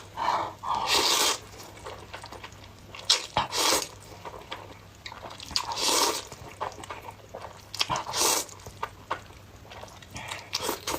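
Close-miked eating of spicy sauced noodles: several slurps about two seconds apart, with wet chewing and smacking clicks between them.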